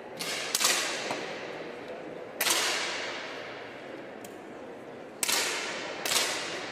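10 m air pistols firing single shots: about six sharp cracks at irregular intervals, one of them faint, each trailing off in the echo of the hall.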